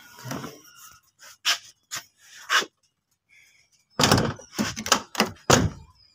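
Car door being handled: a few light knocks and clicks, then a quick run of louder thumps about four seconds in.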